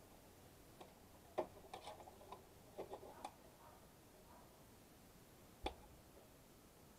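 Faint metal clicks and light knocks of parts being handled while an air conditioner unit is taken apart: a cluster of small clinks in the first half, then a single sharper click near the end.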